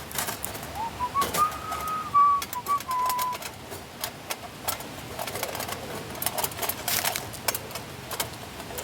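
Irregular clicks and knocks, with a single whistled note about a second in that rises, holds and falls away over a couple of seconds.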